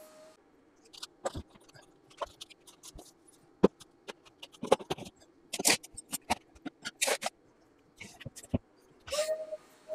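Metal parts and tools clattering, knocking and scraping in plastic storage bins as they are rummaged through and moved, in irregular bursts, with a longer scrape near the end.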